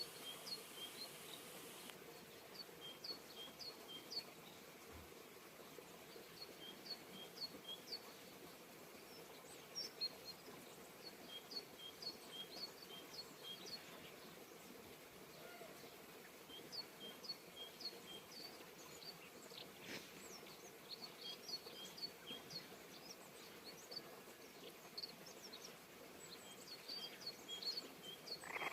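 Faint bird chirping: bouts of short, high notes repeated several times over a steady outdoor background hiss.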